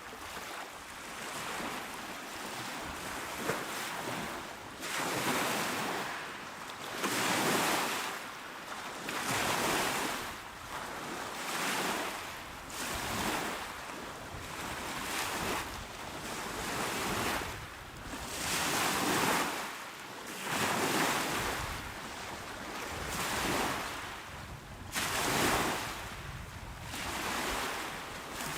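Small, calm waves washing onto a shore, one after another, each swelling and falling away every second or two in a steady hiss of surf.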